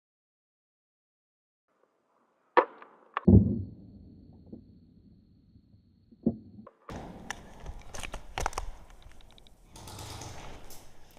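Two sharp knocks close together, a lone knock a few seconds later, then a stretch of rustling with scattered clicks and knocks, like gear being handled on the move.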